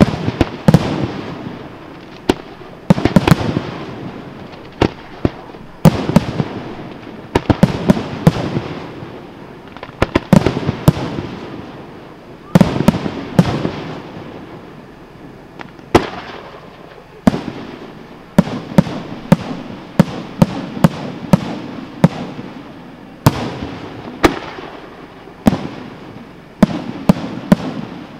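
Aerial firework shells bursting one after another: sharp bangs, each followed by a long rolling echo, with several quick runs of reports, the densest near the end.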